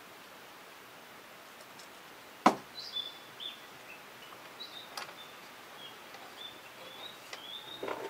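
A tape measure blade snapping back into its case with one sharp click about two and a half seconds in, followed by a few light clicks and a short rustle of handling against the wooden frame. High, thin bird calls are heard through the second half.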